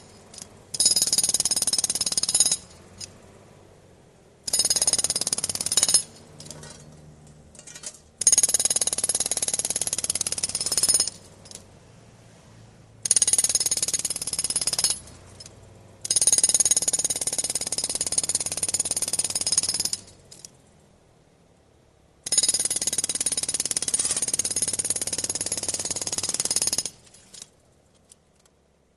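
Road drill hammering in six runs of two to five seconds each, stopping briefly between them.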